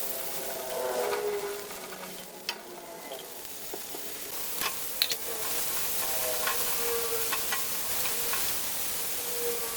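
Food sizzling as it fries in a pan, with a utensil clicking against the pan now and then as it is stirred.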